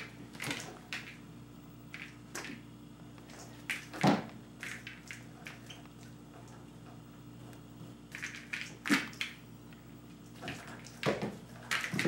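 A kitten pouncing at a bungee bird toy on a hard tiled floor: scattered sharp taps, thumps and scuffs of paws and toy hitting the floor, the loudest about four seconds in and again near nine seconds, over a steady low hum.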